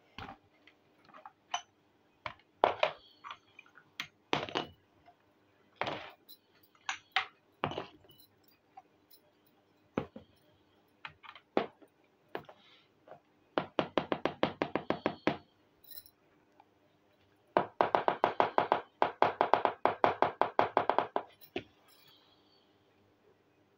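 Miniature clay pots and small plastic toy-kitchen pieces knocking and clinking as they are handled and set down on a hard surface, one light knock at a time. Twice the pieces clatter in a fast, even rattle of many clicks, the second time longer and louder.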